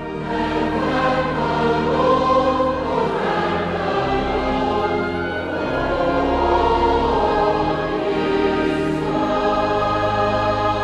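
Choir singing a hymn in slow, sustained phrases over long held bass notes.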